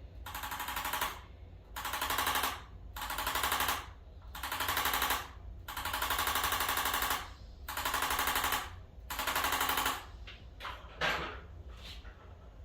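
Handheld percussive massage device hammering in rapid pulses, switched on in about seven bursts of half a second to a second and a half each, with short gaps between, over a steady low hum.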